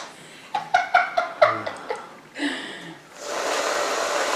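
A few short bursts of laughter, then, about three seconds in, the steady hiss of aerosol whipped cream being sprayed from the can.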